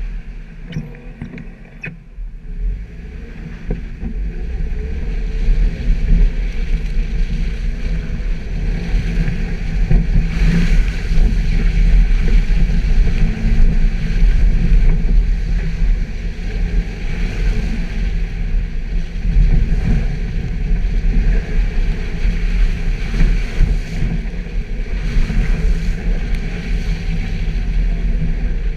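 Suzuki Jimny running as it drives off-road, a steady low rumble that is quieter for the first few seconds and grows louder from about five seconds in.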